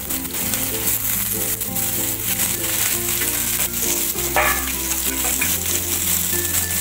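Chopped vegetables sizzling in hot oil in a kadhai while being stirred with a wooden spatula, a steady frying hiss. Background music with a stepping bass line plays underneath.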